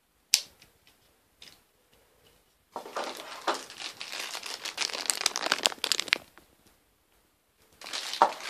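Packaging from a mobile phone's box being rustled and crinkled by hand, with a sharp click just after the start and a long stretch of crinkling in the middle, then more near the end.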